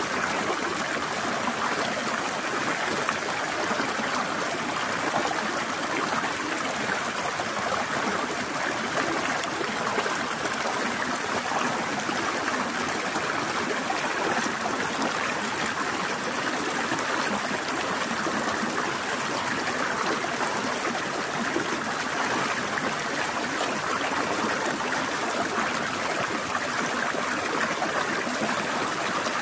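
A forest stream flowing and trickling over rocks, a steady, even rush of water.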